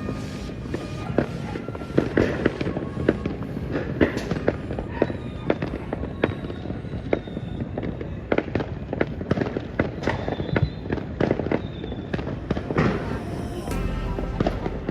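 Fireworks display bursting in rapid succession: many sharp bangs and crackles following one another without a break, with music playing underneath.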